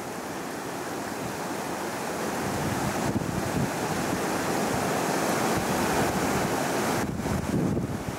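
Mountain river rushing over rocks and rapids, a steady white-water noise that swells louder in the middle, with some wind on the microphone.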